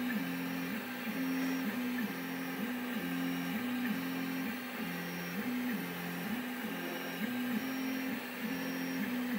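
Stepper motors of a belt-driven CoreXY 3D printer moving the toolhead while printing the first layer: a steady motor whine that switches back and forth between two pitches roughly every half second as the head changes direction.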